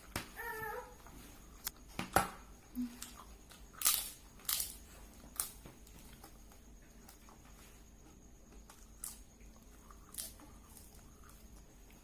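Eating sounds during a fast fried-rice mukbang: a run of sharp clicks of a spoon against a plate, most of them in the first half, and a short wavering voiced sound from the eater about half a second in.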